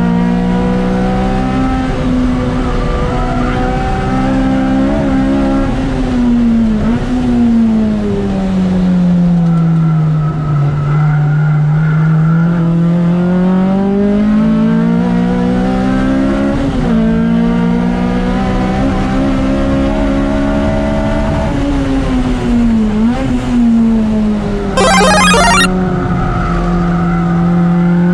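Honda K20A four-cylinder engine of a track-prepared Civic EG, heard on board during a fast lap. Its pitch slides up and down with throttle and gear changes, with short sharp rises at several points. About 25 seconds in there is a brief burst of rapid ticking.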